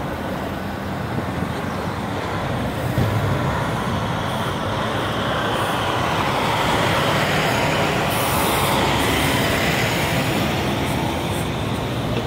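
Motorcade of SUVs, police cars and fire-rescue trucks driving past at speed: continuous engine and tyre noise that builds gradually, loudest around the middle as the big rescue trucks pass close by, then eases a little.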